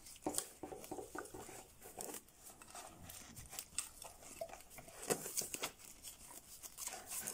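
Gloved hands working at a hose clamp and the rubber hoses on a turbo boost solenoid valve: faint, irregular clicks, rubbing and crinkling.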